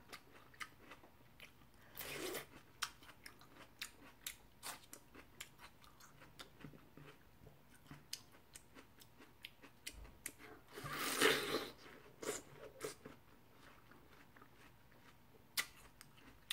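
Close-miked chewing of crisp, juicy watermelon: a run of small wet clicks and crunches, with two louder, longer stretches of crunching about two seconds in and, loudest, about eleven seconds in.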